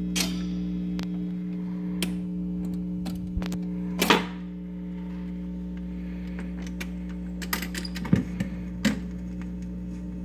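Restored Magnavox record changer running after being switched on: a steady hum from the player, with the changer mechanism's clicks and clunks as it cycles the tonearm onto the record, the loudest clunk about four seconds in.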